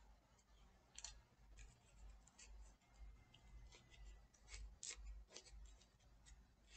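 Faint, irregular crisp ticks and scratches, roughly one or two a second, from small hand work at a desk, over a low room rumble.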